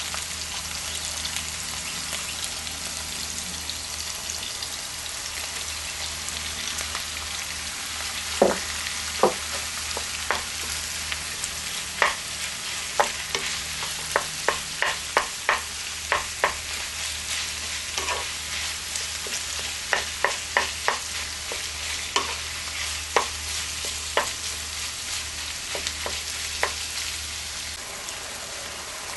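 Diced onion, peppers and ground meat frying in a nonstick pan with a steady sizzle, while a wooden spoon stirs and knocks against the pan: many sharp taps, singly and in quick runs, from about eight seconds in.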